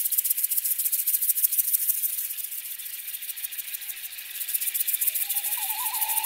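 A hand rattle shaken fast and steadily, like a ceremonial drum-circle rattle, as the opening of a piece of music. Near the end a wavering, higher tone joins in.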